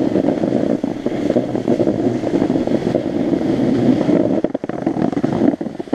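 Skis sliding and scraping over packed snow on a downhill run, mixed with wind rushing over the microphone; the noise is loud and uneven, dips briefly about four and a half seconds in, and cuts off suddenly near the end.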